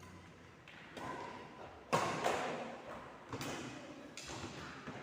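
A series of thuds about a second apart, the loudest about two seconds in, each with a short ring after it.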